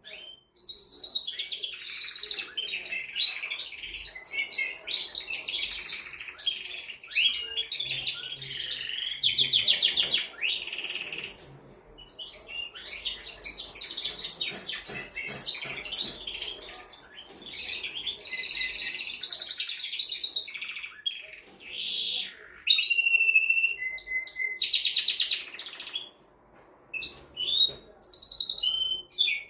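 Male canary singing a long, fast song of trills and rolls, in phrases broken by a few short pauses.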